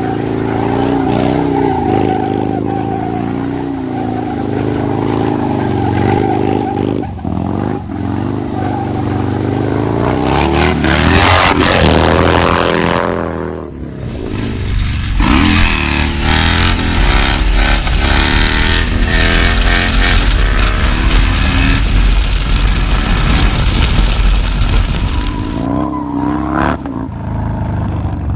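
Harley-Davidson V-twin motorcycle engines revving hard, the pitch repeatedly climbing and falling. The loudest rev climbs to a peak and drops away about thirteen seconds in. After that another engine revs up and down over a heavy low rumble.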